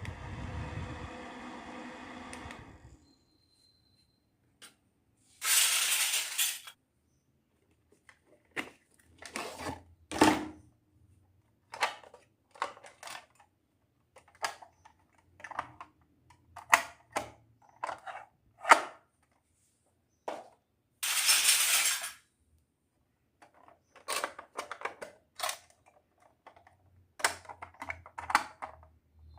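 Small plastic toy kitchen pieces being handled, with a string of sharp clicks, taps and light clatters, and two loud rasping bursts of about a second each. A steady hum in the first few seconds cuts off suddenly.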